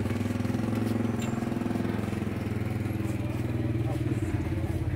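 A motor vehicle's engine running steadily close by, a low hum that drifts slightly in pitch.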